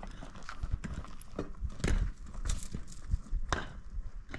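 Irregular sharp knocks and clacks, a few each second, some louder than others, the loudest about two seconds in.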